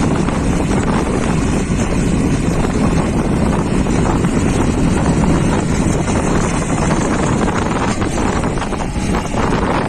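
Backhoe's diesel engine running steadily under wind buffeting the microphone.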